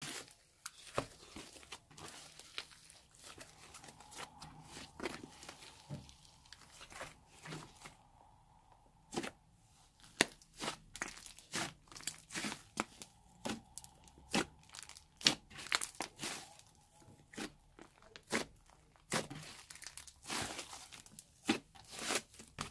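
Thick clay slime being kneaded and stretched by hand, giving irregular sharp crackles and pops that come thicker in the second half.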